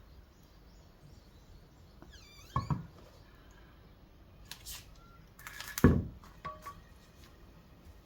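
Scattered knocks while work goes on: a quick double knock about two and a half seconds in, a short scrape-like rustle a couple of seconds later, and the loudest thump near six seconds, with a few light clicks.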